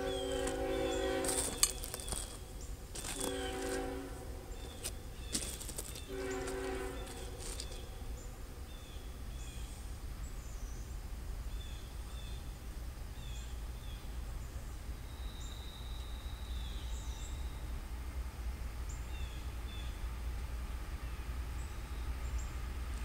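Distant multi-chime horn of an approaching CSX freight locomotive, sounding three blasts within the first seven seconds, the first the longest. A low steady rumble continues underneath and small birds chirp, with a few sharp clicks early on.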